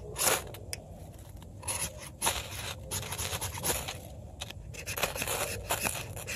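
The 90-degree spine of a Quickhatch Quicklore knife scraped down a ferrocerium rod in repeated, unevenly spaced strikes, throwing sparks to light tinder.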